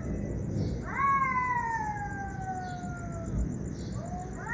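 A cat giving a long, drawn-out wailing cry about a second in, sliding slowly down in pitch for about two and a half seconds, with a second cry starting near the end.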